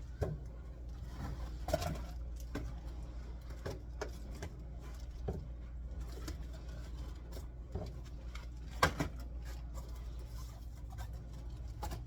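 Scattered light knocks, clicks and rustles of pantry items being picked up and moved, the sharpest knock about nine seconds in, over a steady low hum.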